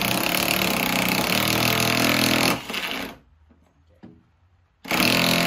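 DeWalt cordless impact driver with a socket hammering a half-inch lag screw into a deck ledger board in rapid blows. It stops about halfway through, is quiet for a second or two apart from one small click, then starts hammering again near the end as the screw is driven home.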